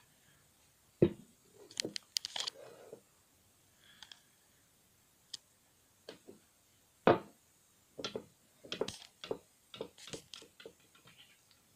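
Large acacia-wood pipe bowl and its long stem being handled and set down on a tabletop: scattered knocks and clicks with short rustles, the two loudest knocks about a second in and about seven seconds in.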